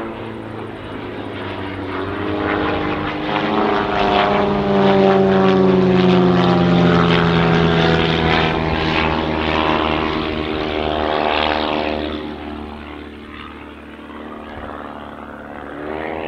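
Two Pitts Special aerobatic biplanes' piston engines and propellers drone as they fly past together. The sound grows louder, then drops in pitch and fades away about two-thirds of the way through, and swells slightly again near the end.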